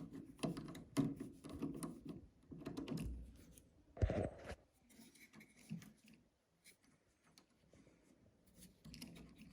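Faint scraping and clicking as a wire is worked free of an old light switch's loosened screw terminal, with a short knock about four seconds in, then near silence.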